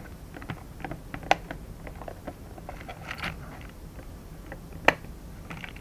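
Scattered small clicks and taps of a hand screwdriver driving screws back into a soldering station's case while the unit is handled, with two sharper clicks, one about a second in and one near the end.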